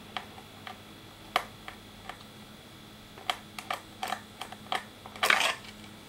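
Phillips screwdriver working a screw out of a laptop's plastic hard-drive bay cover: a series of small, irregular clicks and ticks, with a louder quick cluster of clicks a little over five seconds in.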